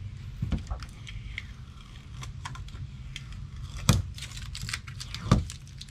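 Fingernails picking at and peeling a vinyl sticker letter off a car's door: a run of small scratchy clicks and crinkles, with two sharper snaps, one about four seconds in and another a second and a half later.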